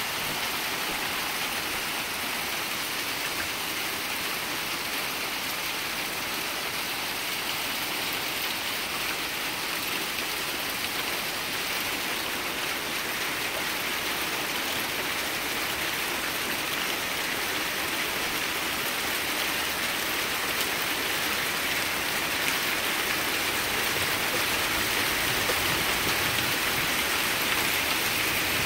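Pea-sized hail falling steadily on a concrete patio and lawn: a dense hiss of countless small impacts, growing a little louder in the last few seconds.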